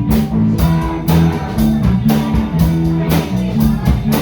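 Live band playing an instrumental passage: guitars and bass over a steady drum beat.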